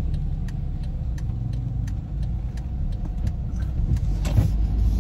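Car interior noise: the steady low rumble of engine and road heard from inside a moving car's cabin.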